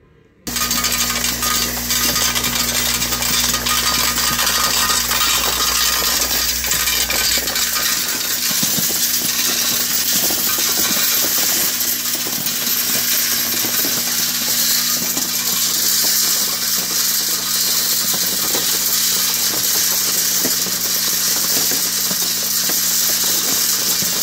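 Brass-sorting trommel starting up about half a second in and running: a steady motor hum under the continuous jingling rattle of spent brass cartridge cases tumbling in the perforated steel drum. A deeper hum beneath drops away about seven seconds in.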